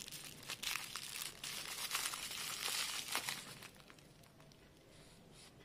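Plastic bubble wrap crinkling and crackling as hands handle a bubble-wrapped package, dying away about four seconds in.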